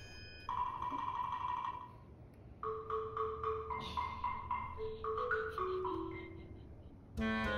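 Background music: a light melody in a marimba-like tone, with a held note at first and then a run of short notes.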